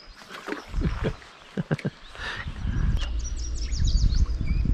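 A few light knocks, then a steady low rumble on the microphone, over which a small bird chirps a quick run of high notes about three seconds in.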